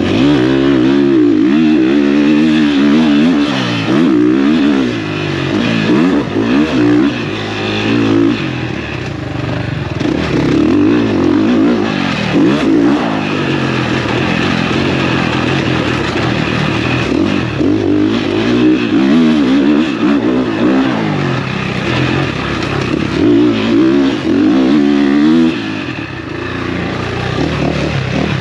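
Motocross bike engine revving hard, its pitch climbing and falling again and again as the rider works the throttle and shifts through corners and jumps on a dirt track.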